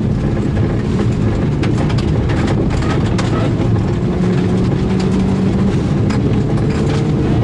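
Turbocharged rally car at speed on a gravel stage: the engine runs hard, its note climbing slowly through the middle. Loose stones clatter against the car's underside in many sharp clicks throughout.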